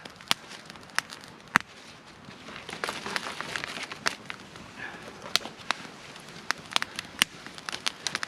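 Campfire of pine twigs and needles crackling, with sharp irregular pops and a busier stretch of crackle about three seconds in.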